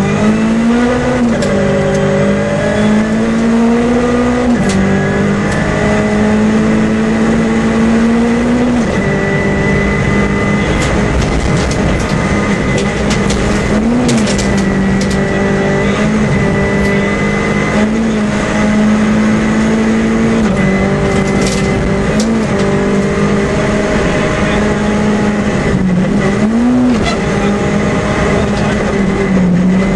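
Renault Twingo R2 rally car's 1.6-litre four-cylinder engine running hard, heard from inside the car at speed on gravel; its note holds near one high pitch, with short dips and rises several times at gear changes and lifts. A thin steady whine runs alongside, and gravel clicks against the car now and then.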